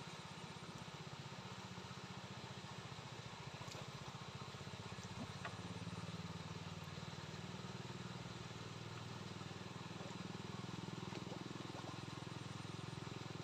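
A faint, steady low engine hum with a fine rapid pulse. It grows slightly louder about halfway through.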